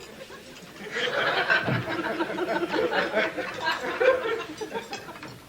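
Studio audience laughter, rising about a second in and fading away near the end.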